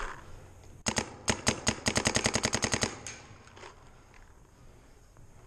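Paintball marker firing a rapid string of about twenty shots: a few spaced shots about a second in, speeding up to around ten a second, and stopping near the three-second mark.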